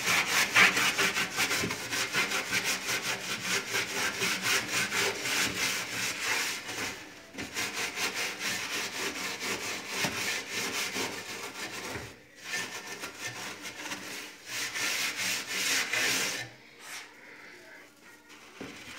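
Quick back-and-forth hand scrubbing inside a small electric countertop oven, as grime is worked off its lower edge. The strokes go in fast runs with a few short pauses and stop a couple of seconds before the end.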